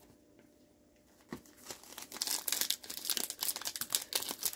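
Plastic trading-card pack wrapper crinkling as it is handled, starting about a second in and growing louder, a dense run of small crackles.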